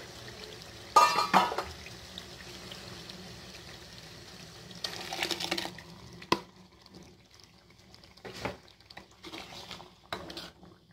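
Tomato-and-onion paste being spooned into a kadhai of chicken frying in oil: hot oil sizzling steadily, with metal clinks and scrapes of a spoon against the bowl and pan. There is a loud clink about a second in and a sharp tap about six seconds in. After that the sizzle dies down to scattered light ticks.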